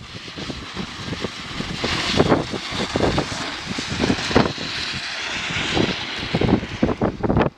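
A rushing, scraping noise of skis sliding over snow, with wind on the microphone. It builds over the first couple of seconds and cuts off suddenly at the end.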